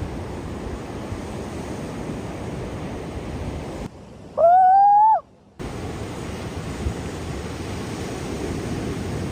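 Heavy surf and wind on the microphone, a steady rushing noise. About four seconds in the surf cuts out abruptly and a short, loud tone sound effect plays for under a second, gliding slightly upward; then the surf comes back.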